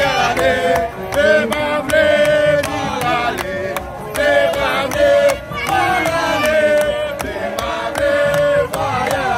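Music: voices chanting a sung melody with long held notes over a quick, steady beat.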